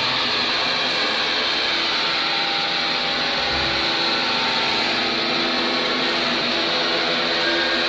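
Rock band playing live, heard through a lo-fi bootleg recording: a dense wall of distorted, hissy noise with a few faint held notes, at a steady level throughout.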